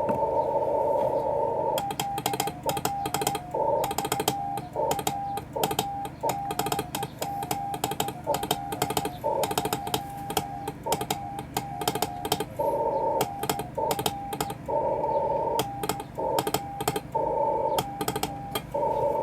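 Morse code (CW) being sent by hand: a transceiver's single-pitch sidetone keyed on and off in dots and dashes, with sharp clicks at each keying. Receiver hiss from the 80 metre band fills the first two seconds and returns near the end, when the sending stops.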